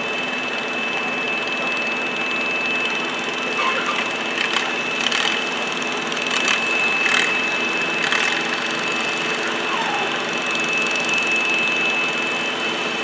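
Garden tractor and farm tractor engines idling steadily, with a thin steady high whine above the engine hum. A few short sharp sounds come between about four and eight seconds in.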